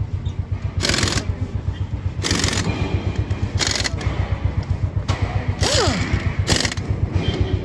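Pneumatic impact wrench on a tractor's wheel nuts, fired in five short bursts about a second apart, over a steady low throb.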